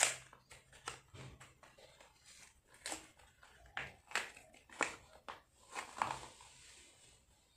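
A bar of soap being unboxed from its paper-and-card packaging: a run of sharp crinkles, taps and clicks from handling the box, with a longer papery rustle about six seconds in as the bar slides out.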